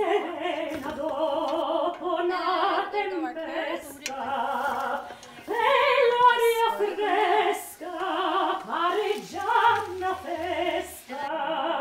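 Background music: a woman singing opera in a high soprano voice with wide vibrato, in phrases a second or two long.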